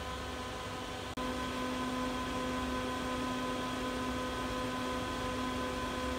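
Steady electrical hum of elevator controller and drive equipment in a machine room, several steady tones over a noise bed. About a second in there is a brief click, after which the low hum gets louder.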